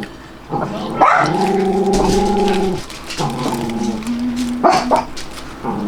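A dog whining and howling in drawn-out notes, with one long held note about a second in, followed by shorter ones.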